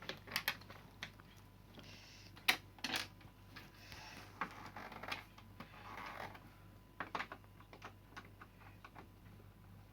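Scattered light clicks and short scrapes of a screwdriver and plastic parts as screws are taken out of an LCD TV's back cover.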